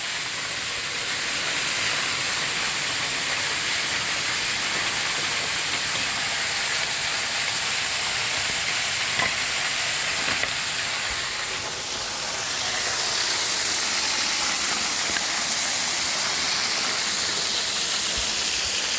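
Waterfall close by: a steady, even rush of falling and splashing water, dipping briefly about twelve seconds in.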